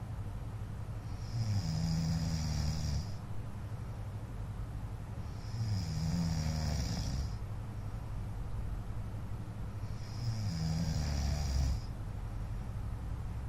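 A man snoring in his sleep: three long snores, each nearly two seconds, coming about every four and a half seconds.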